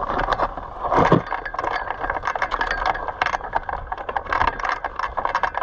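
Rattling and clattering of a hang glider's frame, cables and harness hardware as the pilot gets into the harness and lifts the glider, heard close up: a dense run of small clicks and knocks, with a louder knock about a second in.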